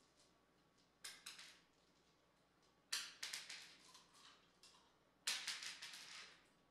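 Paper crinkling and rustling in three short bursts of rapid crackles, like bills being scooped up and crumpled by hand.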